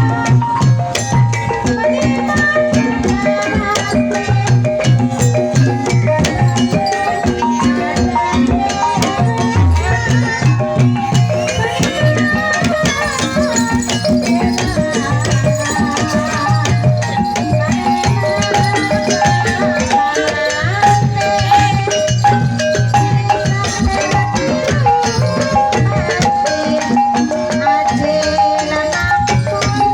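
Ebeg accompaniment music played continuously: a gamelan-style ensemble with repeating pitched metallic notes over steady low drum strokes and rattling percussion.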